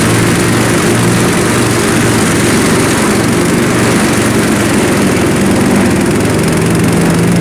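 Murray riding lawn tractor running steadily under load, its mower deck cutting and vacuuming a thick layer of fallen leaves into the bagger, giving a steady hiss over the engine hum.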